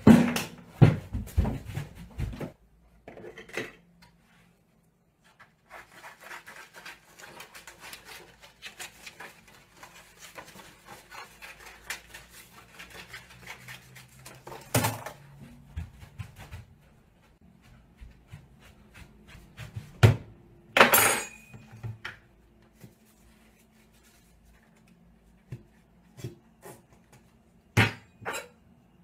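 Hurried handling of paper at a desk: rustling and crinkling, with knocks and clatter of small objects. There are several loud knocks at the start, a long spell of crackly rustling, a sharp knock about halfway through, a louder clatter around twenty seconds in, and a few more knocks near the end.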